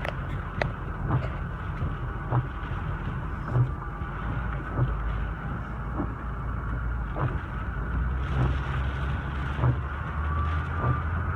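Steady low rumble of a car running, heard from inside the cabin, with a sharp tick about every second that grows more regular after the first few seconds.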